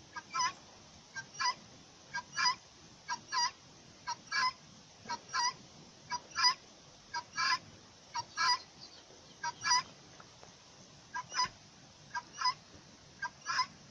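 Helmeted guineafowl calling: short, harsh two-note calls repeated about once a second, with a brief pause about ten seconds in.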